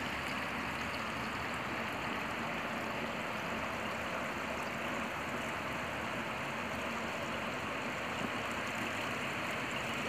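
Steady, even rushing of water, with no breaks or separate drops or knocks.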